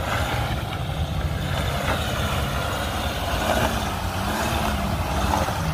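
Jeep Gladiator's 3.0-litre EcoDiesel V6 running at low revs while the truck crawls over a rock ledge. Its pitch rises and falls a little with the throttle.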